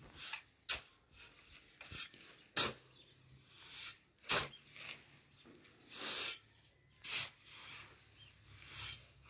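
Long-handled shovel scooping and turning a pile of dry powdery mix on hard ground: sharp scrapes of the blade alternating with soft swishes of the tossed powder, every second or so.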